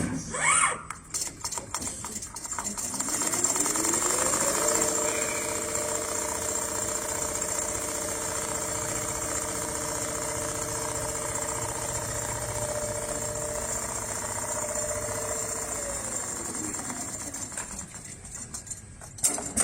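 Automatic CNC sewing machine running: its drive spins up about three seconds in, sews at a steady pitch for about eleven seconds, then winds down to a stop, with a few clicks at the start and end.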